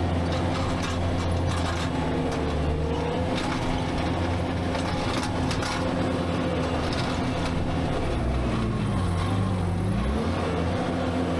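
Skid steer engine running steadily at working speed, with scattered knocks in the first half. Near the end its pitch dips for a moment, then comes back up.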